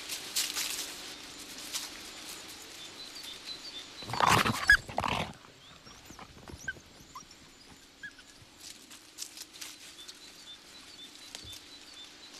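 Wild boar giving one loud grunting call about four seconds in, after some rustling and crackling of dry brush.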